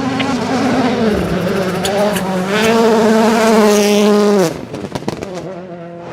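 World Rally Car's turbocharged engine at full throttle, with a brief gear-change dip about a second in, then held high. It drops off sharply about four and a half seconds in as the driver lifts, followed by a few sharp pops.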